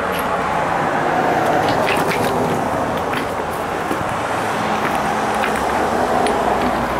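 Road traffic passing on a highway: a motorhome and cars driving by, their tyre and engine noise swelling as each one goes past.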